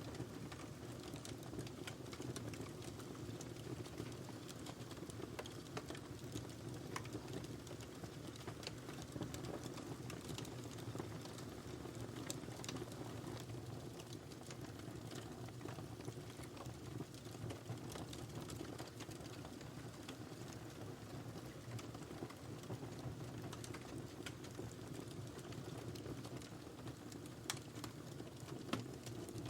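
Wood fire burning in a fireplace: a steady low rumble of flames with frequent small, irregular crackles and pops, a couple of sharper pops near the end.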